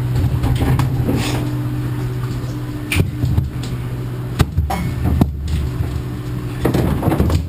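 Steady low drone of machinery running, with a few sharp knocks about three, four and a half and five seconds in.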